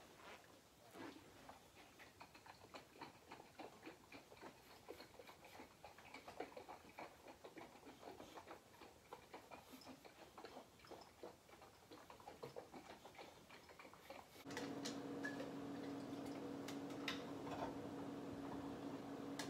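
Mead must (honey and water) sloshing inside a one-gallon glass carboy as it is shaken to mix, a quick, irregular patter of small splashes and knocks. About fourteen seconds in, a steady low hum starts.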